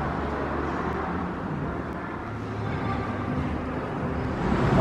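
Steady low rumble and hiss of background noise, growing louder near the end.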